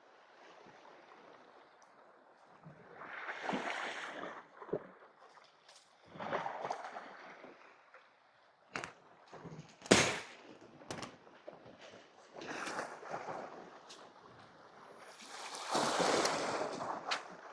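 Sea waves washing against the rocks in swells every few seconds, with a few sharp knocks in between, the loudest about ten seconds in.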